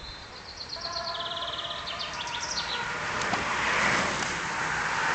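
A songbird trills with rapid repeated notes for the first couple of seconds, then the hiss of a pack of racing bicycles on asphalt, tyres and rushing air, swells steadily as the bunch approaches.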